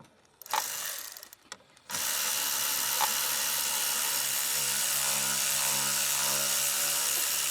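Cordless power tool spinning out 7 mm bolts: a couple of short blips, then a steady run at constant speed for about six seconds.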